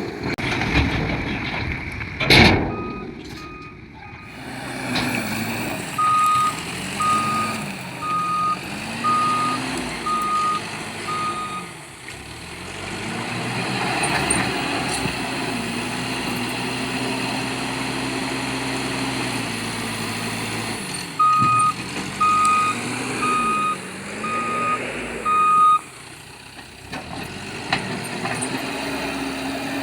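Heavy diesel engine of a Case 770 backhoe loader working, revving up and down again and again, with a reversing alarm beeping steadily in two runs, about one and a half beeps a second. A few sharp knocks and one loud bang come in the first seconds.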